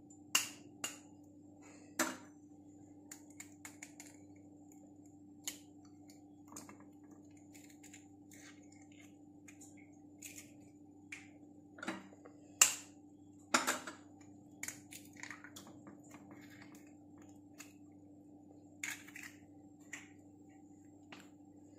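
Egg soup heating in a steel pot on a gas burner: irregular small clicks and pops over a steady low hum, with a few sharper clicks around two, twelve to fourteen, and nineteen seconds in.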